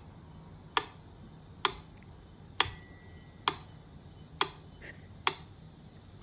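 Mechanical metronome ticking steadily, a sharp click a little under once a second, with a bell ding on one beat about two and a half seconds in that rings on briefly.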